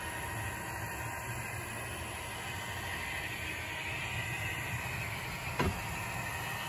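Model diesel locomotive running along the layout track: a steady low hum with a single sharp click about five and a half seconds in.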